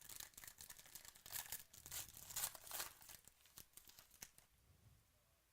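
Faint tearing and crinkling of a trading-card pack's wrapper being torn open and handled. It stops about four and a half seconds in.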